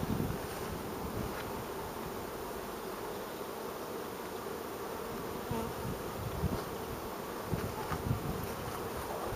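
Carniolan honeybees buzzing steadily around an opened hive during honey harvest, with a few soft low bumps in the second half.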